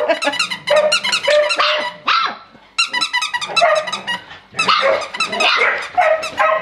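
A litter of three-week-old puppies yapping and squealing in quick, overlapping high-pitched cries, with a short lull about two and a half seconds in.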